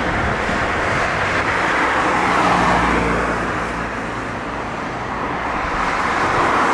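Road traffic: cars passing on the street, with tyre and engine noise swelling and easing, loudest about two and a half seconds in and again near the end.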